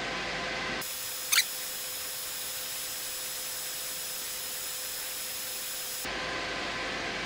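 xTool S1 laser engraver running steadily with its fans on. Then its sound is sped up 25 times: a high hiss with thin steady tones and a brief rising squeal about a second and a half in. The steady running sound returns near the end.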